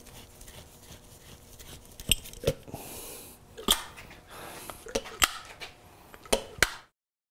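Sharp metallic clicks and knocks from a motorcycle fork leg being handled and worked, with a couple of brief rubbing hisses in between.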